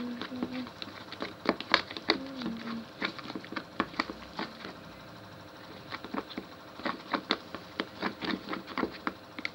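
Slime being mixed or kneaded by hand, making irregular sticky clicks and pops that come in clusters, with a short pause about halfway through.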